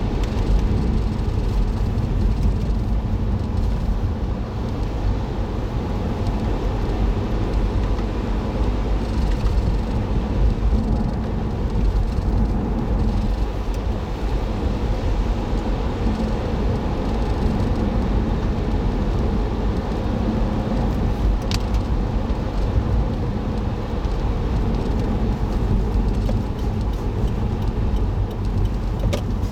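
Steady low rumble of a car driving, engine and tyre noise heard from inside the cabin by a dashboard camera. A sharp click sounds about two-thirds of the way through, and another near the end.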